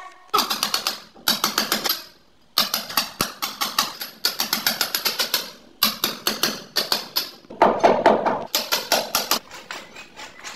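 Rapid runs of sharp taps, about six or seven strikes a second, each run lasting one to two seconds with short pauses between.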